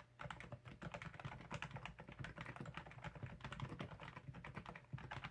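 Continuous fast typing on an ABKO AR87 aluminium mechanical keyboard with lubed Cherry MX Red linear switches and lubed stabilisers: a dense, steady run of keystrokes.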